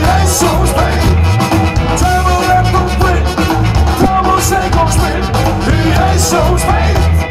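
Live ska-punk band playing loud: electric guitars, bass and drums with a trumpet, a heavy pulsing bass line under regular cymbal hits.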